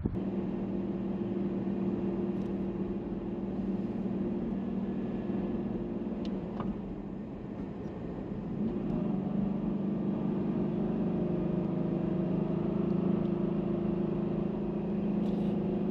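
A car driving: a steady engine and road hum, which dips briefly and changes pitch slightly at about nine seconds in.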